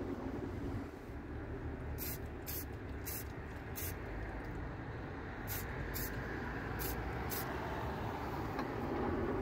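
Aerosol spray paint can hissing in short bursts, four quick sprays, a pause, then four more, as silver paint goes onto inline skate axles, over a steady low background rumble.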